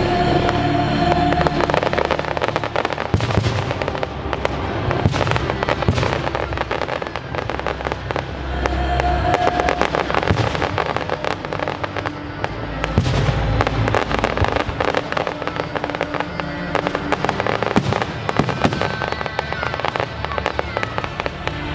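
Fireworks exploding in quick succession, dense bangs and crackles over the show's music soundtrack.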